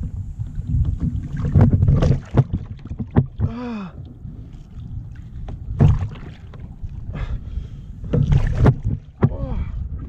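Water splashing beside the kayak as a big blue catfish thrashes at the surface while it is grabbed by hand. The splashing comes in loud spells about two seconds in, near six seconds and again after eight seconds. Steady wind rumble on the microphone runs underneath.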